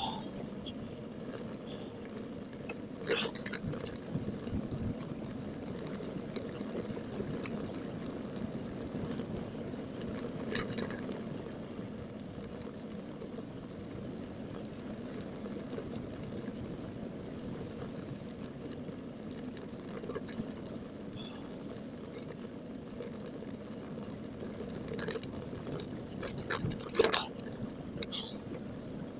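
Wind buffeting the microphone and tyre noise from a bicycle rolling along a tarmac path, played back at double speed, with a few sharp knocks or rattles, the loudest about two seconds before the end.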